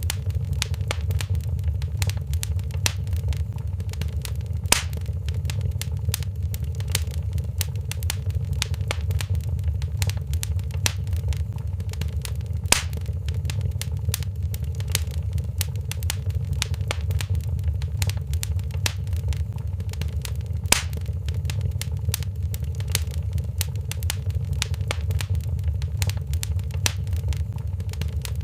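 Crackling wood fire in a fireplace: a steady low rumble under a constant patter of small crackles, with three louder pops spaced about eight seconds apart.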